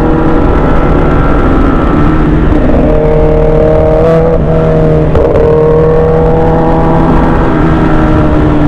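Motorcycle engines running at a steady cruising speed with heavy wind rush, a Kawasaki ZX-10R riding close alongside. The engine note shifts slightly twice, around four and five seconds in.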